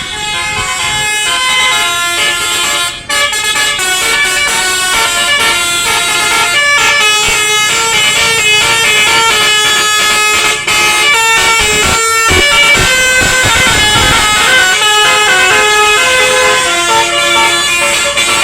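Bus's 'basuri' telolet horn, a multi-note musical air horn, playing a tune of stepping notes, loud and continuous. A low rumble swells briefly about twelve seconds in.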